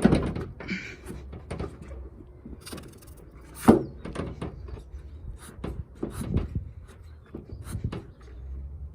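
Irregular knocks and clicks of hard objects being handled, with one sharp loud knock a little under four seconds in and a few heavier thuds later.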